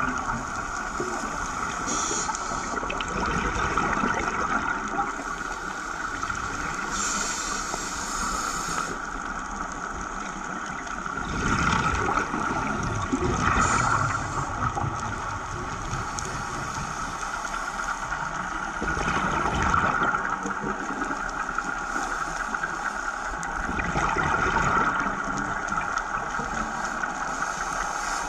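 Underwater sound through a camera housing: a steady hiss with swells of bubbling every few seconds from a scuba diver's regulator as the diver breathes, exhaled bubbles rushing past.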